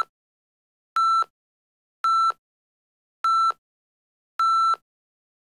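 Electronic countdown beeps: a short steady high tone repeated about once a second, four in a row, the last one slightly longer, counting down to the start of a timer.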